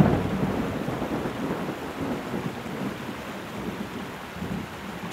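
Steady rain with a rolling rumble of thunder, loudest at the very start and slowly dying away.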